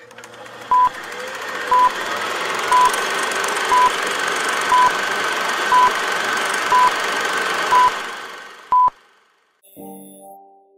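Old-film countdown leader sound effect: a short high beep about once a second, nine in all, over the steady rattle and crackle of a film projector. The rattle fades out after the last beep.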